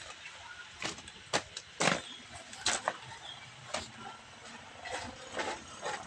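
A run of short, sharp knocks and crunches at irregular intervals, about ten in six seconds, the loudest about two seconds in, over faint outdoor background noise.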